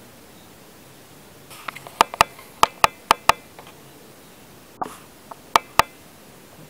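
Sharp clicking taps in quick pairs, each pair about a fifth of a second apart: three pairs in the middle and another pair near the end, with a few fainter ticks between.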